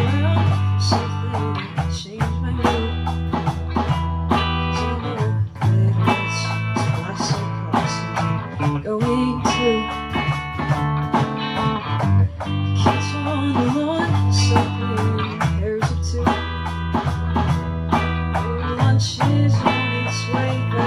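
A small rock band playing live together: strummed electric guitars with a heavy low end over steady drumming on an electronic drum kit. A singer's voice comes in at times.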